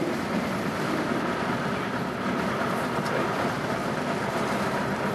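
Piper Tomahawk's light-aircraft piston engine running steadily, heard from inside the cockpit.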